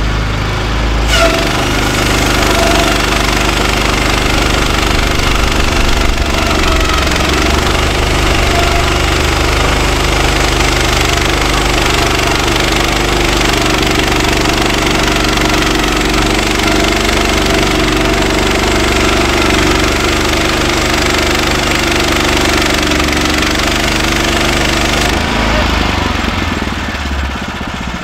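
Woodland Mills HM126 portable bandsaw mill sawing through a softwood cant: its gas engine runs steadily under load while the band blade cuts the wood with a steady hiss. The hiss comes in about a second in, as the blade enters the wood, and drops away near the end as the cut finishes, leaving the engine running lighter.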